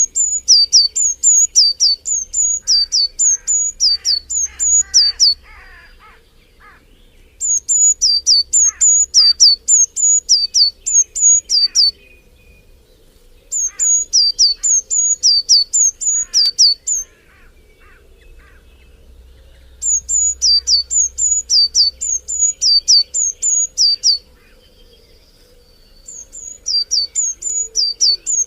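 A songbird singing loud, high-pitched phrases of a quickly repeated two-note figure, a higher note dropping to a lower one, about twice a second. Each phrase lasts about four to five seconds, and the bird sings five phrases with short pauses between them. Fainter calls of other birds sound underneath.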